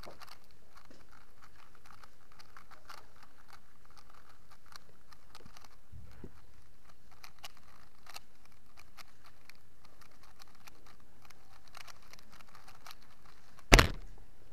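A 3x3 speedcube being turned quickly during a blindfolded solve: a rapid run of small plastic clicks and clacks. Near the end comes one loud slap as the cube is put down and the stackmat timer stopped.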